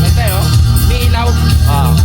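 Recorded song played loudly through a hi-fi system, with a heavy, steady bass line and a singing voice coming in about a quarter second in.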